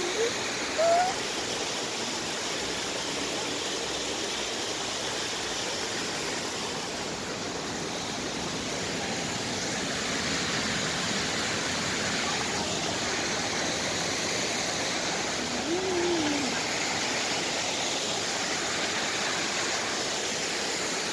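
Steady rush of flowing water, even and unbroken, with a short voice-like call about a second in and another about two-thirds of the way through.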